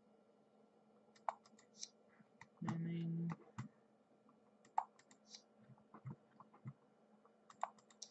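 Faint, irregular clicking in small clusters from operating an Apple iMac G3 computer.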